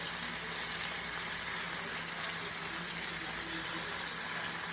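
Bacon-wrapped filet mignon steaks sizzling steadily as they sear in a hot pan.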